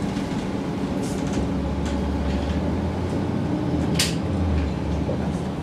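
MAN NG 313 articulated city bus's diesel engine running, with a deeper rumble building up through the middle, and one short sharp burst of noise about four seconds in.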